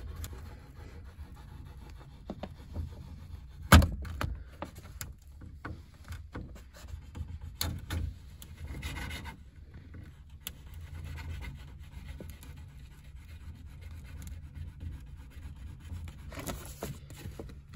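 Plastic door vapour barrier being peeled back while a knife blade cuts and scrapes through the foamy adhesive behind it: irregular rustling, rubbing and scraping. A single sharp click about four seconds in.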